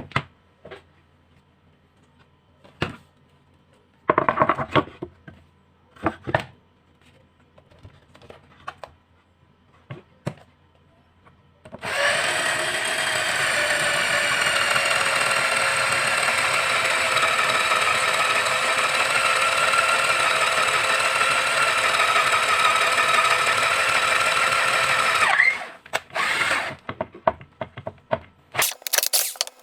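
Scattered handling clicks and knocks, then about twelve seconds in a National 7.2 V cordless drill's motor starts and runs at a steady speed for about thirteen seconds before stopping, powered by its rebuilt battery pack. More clicks and knocks follow.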